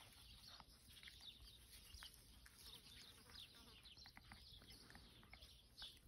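Near silence: faint outdoor ambience with a few scattered light ticks.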